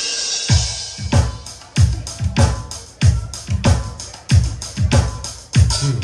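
Drum kit playing a steady beat: bass drum about every 0.6 seconds with snare and cymbal strokes between, after a cymbal wash at the start.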